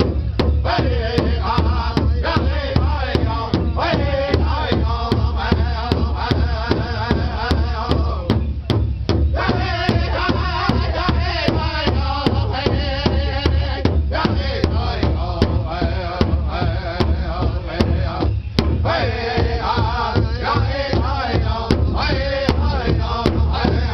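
A powwow drum group singing in unison over a steady, even beat, several men striking one large shared drum together with drumsticks. The voices drop out briefly twice while the beat carries on.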